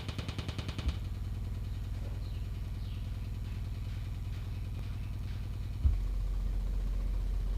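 Bass test tones from a sound-check track played through a 200-watt amplifier board into a 12-inch subwoofer: a rapid bass pulsing of about seven beats a second gives way about a second in to a steady low tone, which steps down to a deeper steady tone near six seconds.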